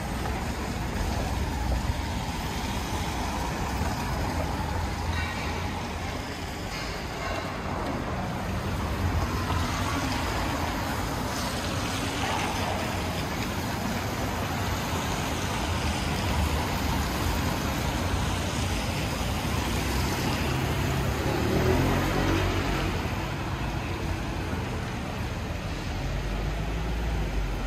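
City street traffic: a steady hiss and rumble of cars and other vehicles passing, swelling louder a few times as vehicles go by.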